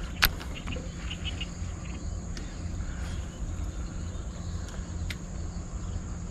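A steady, high-pitched drone of insects over a low rumble of wind. A single sharp click from the Clamber Long Shot baitcasting reel comes about a quarter second in, as the angler handles it to cast, and a few faint ticks follow.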